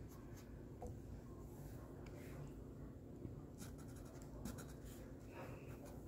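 Faint scratching of a black Sharpie marker tip drawing short strokes on a painted canvas.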